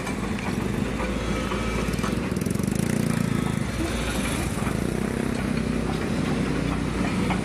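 Excavator's diesel engine running steadily, with a few faint clanks.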